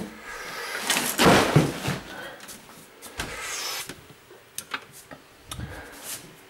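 Household things being handled and moved about: a loud rustle about a second in, then several light knocks and clatters.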